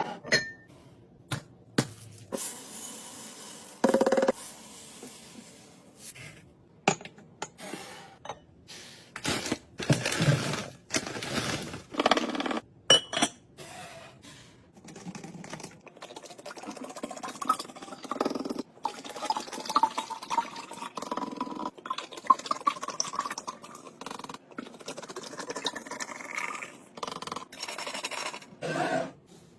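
Liquid being poured into a container, its pitch rising steadily over about ten seconds as the container fills, among irregular clicks, knocks and clinks of containers being handled and set down.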